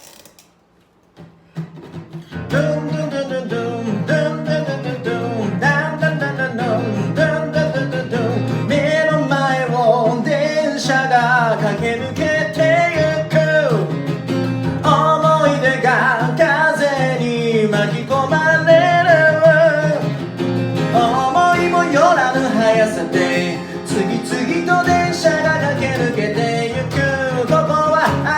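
Acoustic guitar with a sung melody over it, starting about two seconds in.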